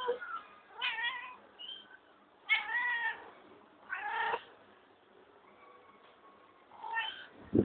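Domestic cat meowing about four times, each call short and pitched, with pauses between.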